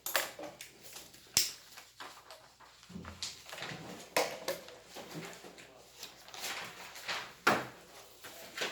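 Scattered knocks, clicks and scraping noises of things being handled and moved, with a sharp knock about a second and a half in and another near the end.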